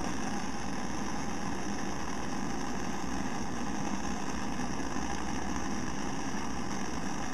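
Gas blowtorch burning steadily, heating a bent steel bolt to blue it. A continuous even rushing noise with no change.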